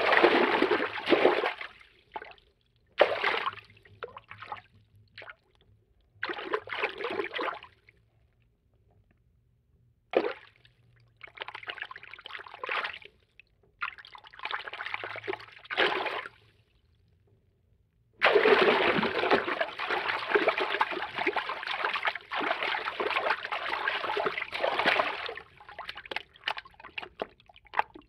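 Cartoon water-movement foley: a series of short water sound effects of a second or two each, separated by silent gaps, the first starting suddenly, then one longer stretch of water movement lasting about seven seconds.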